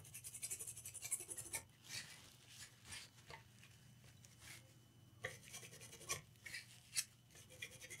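Faint scrubbing and scratching on a laptop circuit board as flux residue is cleaned off around a freshly soldered USB-C charging port, in short irregular strokes with a lull about halfway through.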